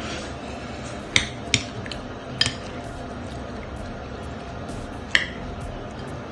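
A white soup spoon stirring chicken noodle soup in a ceramic bowl, with liquid sloshing softly and four sharp, briefly ringing clinks as the spoon knocks the bowl's side, the last well after the first three.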